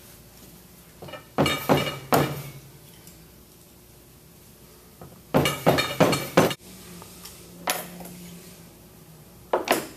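Small stainless-steel pump parts clinking and knocking against each other, in short sharp strikes that ring: two about a second in, a quick run of four or five in the middle, one more, and two near the end.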